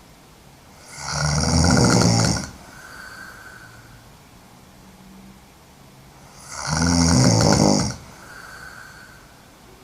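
A woman snoring hard: two loud snores about five and a half seconds apart, each lasting about a second and a half, with a much softer breath sound after each.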